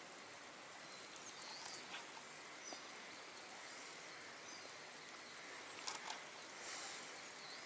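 Quiet outdoor ambience: a faint steady hiss with a few brief, faint, high bird chirps, and a light click about six seconds in.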